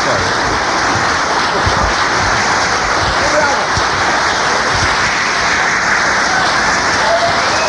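Audience applauding, a dense steady clapping, with a few voices calling out in the crowd.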